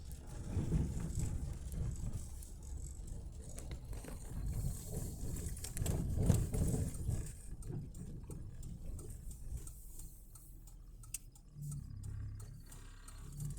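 Car driving, heard from inside the cabin: a steady low rumble of engine and road noise, with a few small rattles and clicks.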